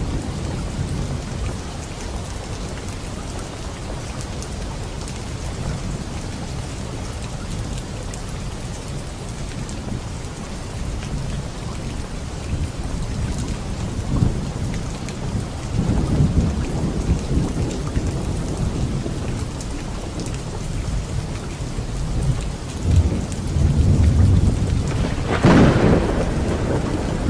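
Heavy rain falling steadily in a hiss, with low thunder rumbling through it, swelling about halfway through and again near the end, where the loudest, sharper peal rises over the rain.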